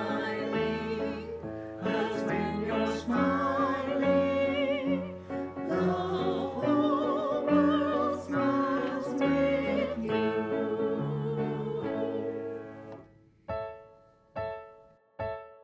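A small mixed group of voices singing together with vibrato over keyboard accompaniment, ending about 13 seconds in. Then three keyboard chords, about a second apart, each dying away.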